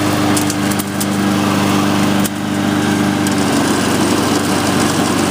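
The Honda overhead-cam engine of a Husqvarna LC221A all-wheel-drive walk-behind mower running steadily with its self-propel transmissions engaged, driving the mower forward. The drive is working properly.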